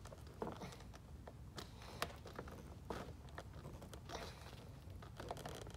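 Hand screwdriver driving a small pointed screw into plastic, heard as faint scattered clicks, creaks and scrapes of the screw biting in and hands working against the plastic.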